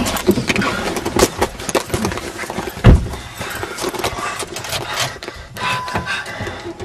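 Handling noise from a handheld camera jostled as someone hurries through woods: irregular rustling and knocks, with one loud thump about three seconds in.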